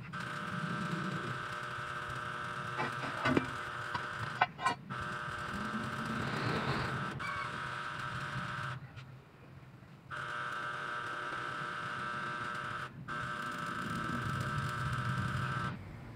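A steady mechanical hum with a few clicks and knocks, breaking off suddenly twice.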